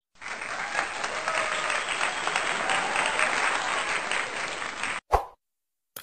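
Crowd applause, a dense clatter of many hands clapping, that cuts off abruptly after about five seconds. A single sharp thump follows, then a short click at the very end.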